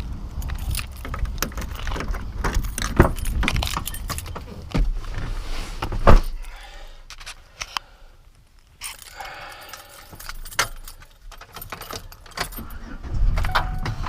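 Irregular clicks and jangling rattles of small hard objects being handled, with one sharp knock about six seconds in. A low, steady rumble comes in near the end.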